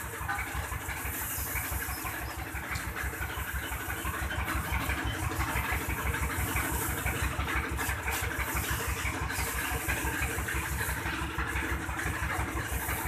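Massey Ferguson 260 tractor's diesel engine idling steadily, a regular low chugging pulse.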